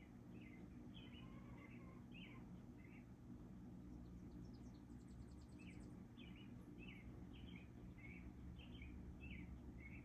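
Small birds chirping: quick runs of short chirps, with a high, fast trill about midway, over a steady low hum.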